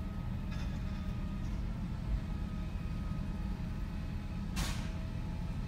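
Compressed-natural-gas garbage truck idling with a steady low rumble, then a short air-brake hiss about four and a half seconds in.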